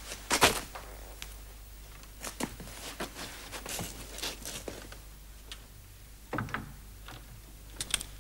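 Scattered knocks, clicks and rustles of a person handling things in a quiet room, with a sharper knock about half a second in and a duller thump about six and a half seconds in.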